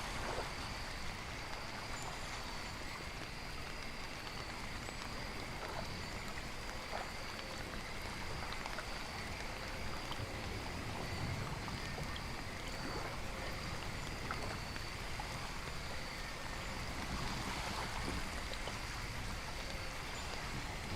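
Rain and running-water nature ambience: a steady wash of falling rain and water, with faint steady high-pitched tones running through it.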